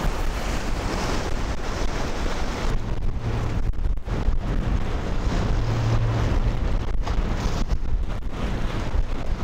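Strong wind buffeting the microphone in uneven gusts, over the wash of surf on a beach.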